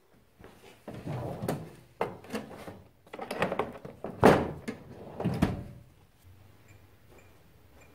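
A metal tool-chest drawer sliding open and a long wrench being lifted out of its plastic case, with a run of clattering knocks and rattles; the loudest knock comes about four seconds in.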